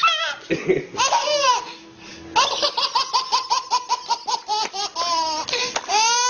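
A baby belly-laughing: a fast run of short, breathy bursts of laughter through the middle, then a long high squeal of laughter near the end.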